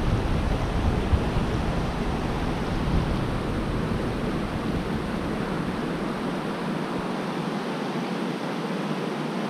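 Steady rush of a small creek's flowing water. A low rumble underneath drops away about two-thirds of the way through.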